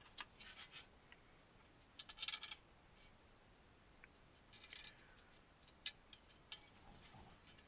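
Faint scratching and a few small sharp clicks of screws being fitted and tightened into the model truck's chassis plates.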